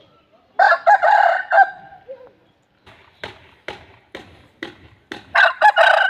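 Aseel rooster crowing: one loud crow about a second long, starting about half a second in. A run of sharp taps follows, about two a second, then a second loud, choppy call near the end.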